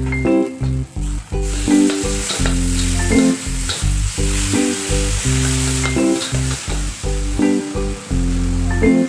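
Mee goreng noodles sizzling and frying in a hot steel wok while they are stirred and tossed with a metal spatula and ladle; the sizzle jumps up loud about a second and a half in and stays steady. Background music with a steady bass line plays underneath.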